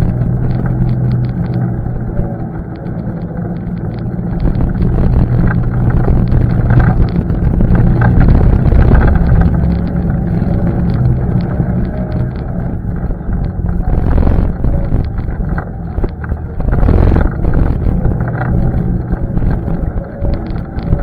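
ATV engine running under way over rough trail, its note rising and falling a little, with frequent knocks and rattles from bumps and some wind on the microphone.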